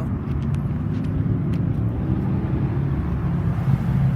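Road traffic: passing vehicles' engines and tyres making a steady low rumble.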